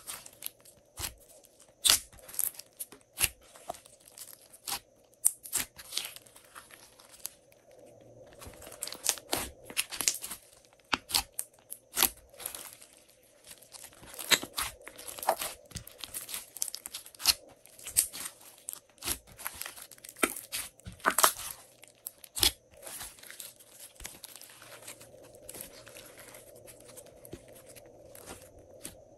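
Hands kneading and squeezing glossy slime: irregular sticky crackles, snaps and pops as the slime is pressed and pulled apart. The pops thin out and grow quieter near the end.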